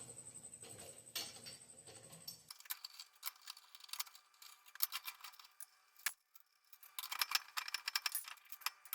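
Irregular light metallic clinks and rattles of hand tools and small metal parts being handled, with a brief quiet gap about six seconds in.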